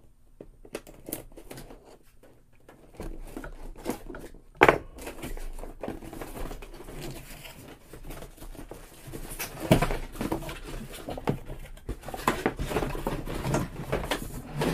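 Keyboard packaging being unpacked by hand: plastic and cardboard rustling and crinkling, with scattered clicks and knocks. The loudest knocks come about four and a half seconds in and near ten seconds.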